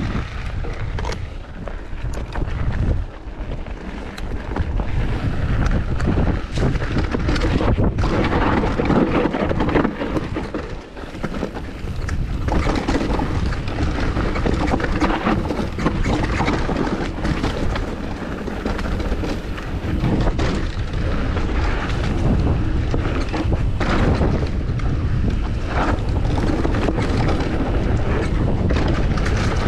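Mountain bike riding down a dirt and rock trail. Wind buffets the microphone over the tyres crunching on gravel and rock, with many short clicks and rattles from the bike over bumps.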